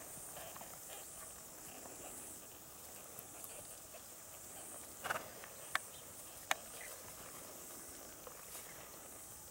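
A horse walking on grass, with a few sharp knocks about halfway through, over a steady high hiss.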